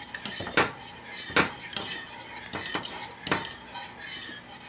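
Wire balloon whisk clinking and scraping against the sides of a stainless-steel saucepan as it stirs thickening pastry cream (crème pâtissière), in repeated, irregularly spaced strokes.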